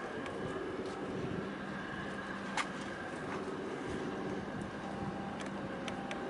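Steady low drone of ship engines carrying across the harbour water, with a few light clicks and one sharper click about two and a half seconds in.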